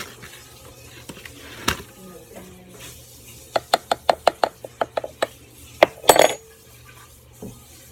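A utensil clinking against a mixing bowl while play dough is mixed: a knock, then a quick run of about a dozen taps, then a couple of louder knocks.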